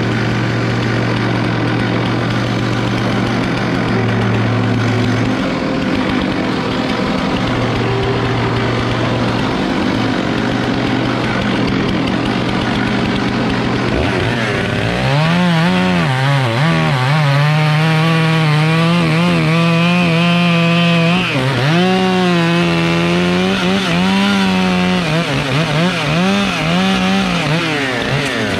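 Stihl 661C two-stroke chainsaw bucking logs. A steady engine hum runs for the first half; about halfway in the saw goes to full throttle in the cut, its pitch dipping and recovering as the chain loads up in the wood.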